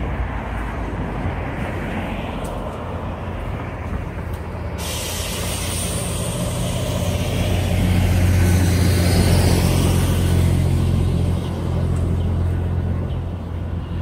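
A large engine's low rumble, growing louder to a peak a little past the middle and then easing off.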